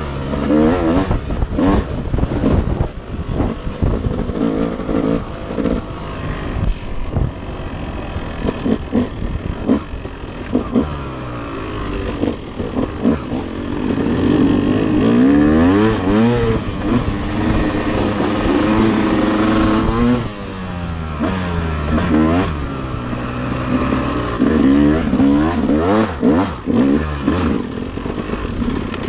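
Dirt bike engine under way, heard from the bike itself, its pitch climbing as it accelerates and dropping back again, over and over.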